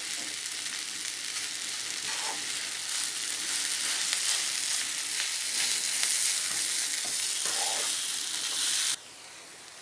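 Coriander stems, onion and soaked dal frying in oil in a nonstick pan, a steady sizzle with a spoon stirring through it. The sizzle drops away suddenly near the end, leaving only a faint hiss.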